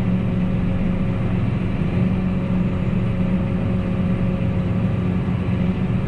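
John Deere 8R tractor's six-cylinder diesel engine running steadily, heard from inside the closed cab as an even low hum while the tractor moves slowly off with a cultivator hitched.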